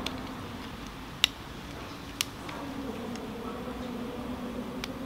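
Sharp plastic clicks as a lens is pressed and snapped into the frame of Mormaii Athlon 2 squash goggles: a handful of clicks, the loudest a little over a second in, over a faint steady hum.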